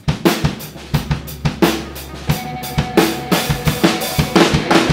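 Rock drum kit playing a song intro live, a steady run of bass drum, snare and cymbal hits, with low bass-guitar notes held underneath.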